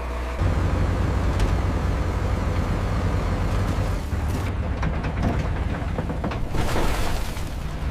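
Low, steady mechanical rumble of a heavy engine or machine, with a few sharp clicks and a burst of hiss about seven seconds in.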